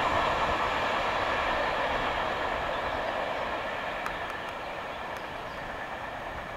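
Passenger train running away along the track, its wheel and rail noise fading steadily as it recedes.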